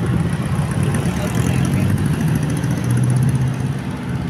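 Bus engine running at a steady low hum. It gets a little stronger about three quarters of the way through, with no horn sounding.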